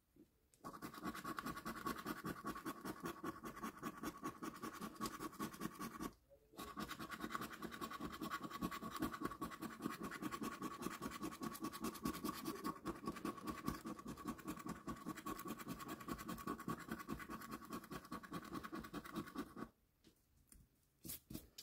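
A pound coin scraping the latex coating off a paper scratchcard in rapid back-and-forth strokes, with a short break about six seconds in. The scraping stops about two seconds before the end, leaving a few brief scratches.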